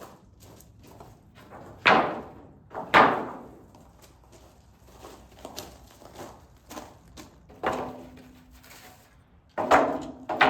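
Hammer driving nails into wooden board-and-batten barn siding. There are two loud blows about a second apart near the start, then lighter knocks and handling of boards, and more blows near the end.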